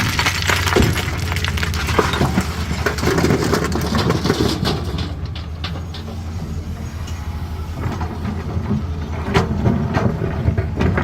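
Caterpillar 320D excavator's diesel engine running under load, with stone clattering and knocking against the steel bucket as rock is dug and loaded. The knocks come thick in the first half, thin out around the middle, and pick up again near the end.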